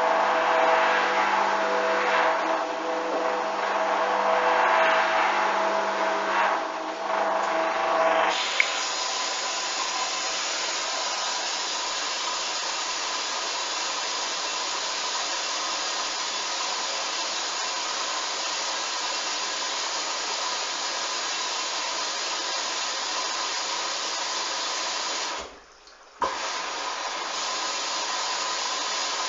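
Hoover washing machine on a duvet wash: the drum motor whirs, swelling and easing as the drum turns. About eight seconds in it gives way abruptly to a steady rushing noise with a high whine, which cuts out for under a second near the end and then resumes.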